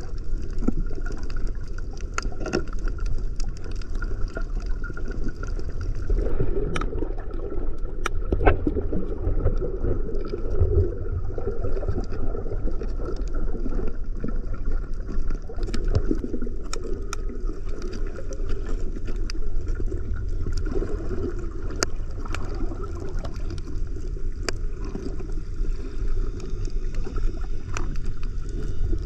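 Underwater sound picked up by an action camera's microphone: a steady, muffled low rumble of water with many scattered sharp clicks and crackles.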